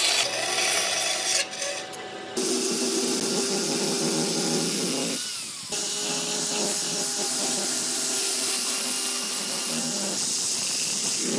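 Power tool running on wood: a steady motor hum with a bright hiss of cutting or sanding, the sound changing abruptly about two and a half seconds in and again near six seconds.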